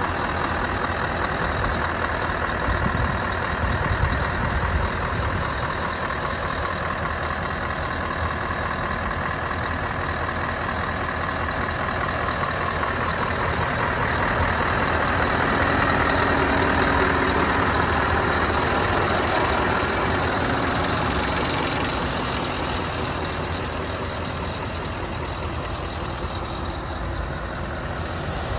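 Scania R500's V8 diesel engine idling steadily, a low rumble that grows somewhat louder around the middle and then eases off.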